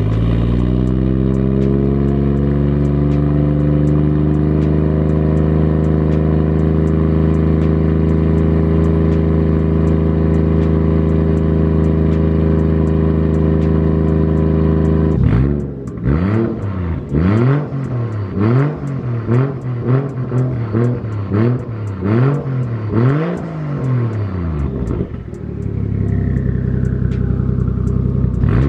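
Toyota 1JZ-GTE turbocharged inline-six breathing through a new titanium cat-back exhaust and dump pipe, loud and echoing in a garage. It fast-idles just after starting, the idle settling lower over the first few seconds and then holding steady. About halfway through it is blipped about eight times in quick succession, each rev rising and falling, then it drops back to idle near the end.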